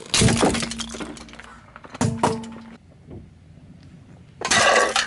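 Hard plastic toys cracking and crunching as a car tyre rolls over them. There is a sharp crack-and-crunch right at the start, another about two seconds in, and a longer, louder crunching near the end as upturned plastic cups are flattened.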